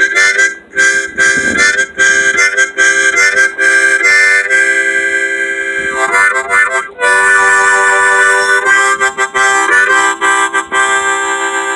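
Harmonica playing a tune, mostly long held chords with quick runs of notes between them.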